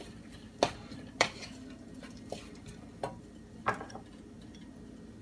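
Wooden spoon stirring fried rice with carrots and peas in a nonstick frying pan. About five sharp knocks of the spoon against the pan come over the first four seconds, then the stirring stops.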